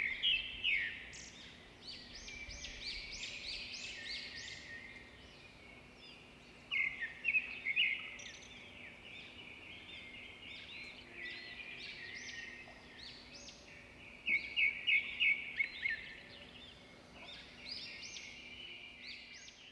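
Small birds chirping and singing, with quick runs of high notes in bursts every few seconds over a faint steady hum.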